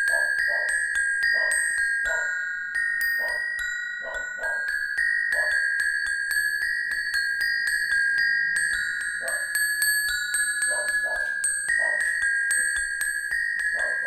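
Metal bars on a stone slab struck with two thin metal rods as a practice set for church bells, playing a slow, melancholy bell tune of the kind rung for a child's funeral, on four bell notes with the tonic left out. Each note rings on over the next strikes, which come in a steady run of light metallic taps.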